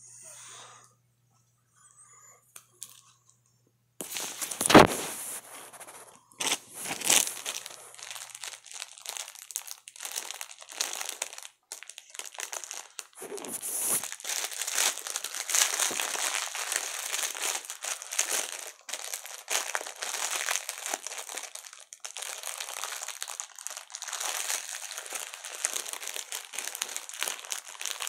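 Packaging being torn open and crinkled by hand: irregular crinkling and tearing, starting after a few quiet seconds and going on steadily, with a sharp knock about five seconds in.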